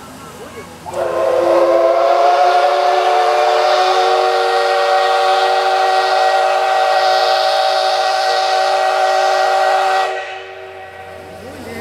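Steam whistle of the JNR Class D51 steam locomotive D51 498, sounded in one long blast of about nine seconds. Several tones sound together, bending up slightly as the whistle opens about a second in, then hold steady until it cuts off.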